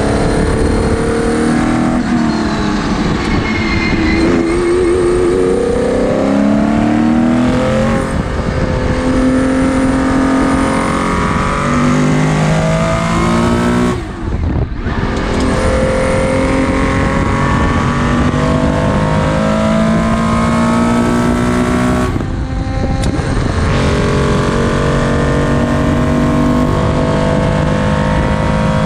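Porsche 917/10's fuel-injected flat-12 engine heard from the cockpit at racing speed, climbing in pitch through the gears with each upshift dropping the note back. The engine note dips briefly twice, about halfway through and again about three quarters of the way in, as the throttle is lifted.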